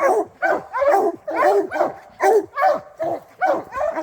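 Several hounds barking steadily, about three barks a second, baying at a bear they have treed.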